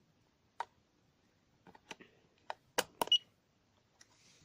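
Sharp plastic clicks and taps from a carbon monoxide alarm as its batteries are pushed back in, about six of them, the loudest around three seconds in, followed at once by a brief faint high beep.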